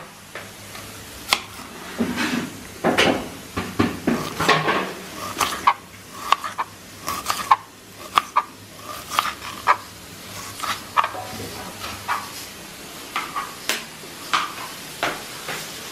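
Kitchen knife slicing an onion on a plastic cutting board: irregular sharp knocks of the blade striking the board.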